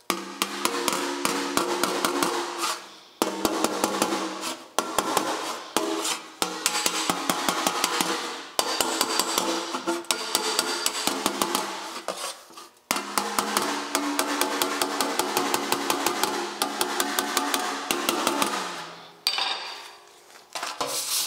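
Body hammer tapping a dented sheet-metal motorcycle fender against a dolly held behind it. The light, rapid strikes come several a second in runs broken by short pauses, and the panel rings under them. The work is raising low spots to bring the dent back up to the panel's surface.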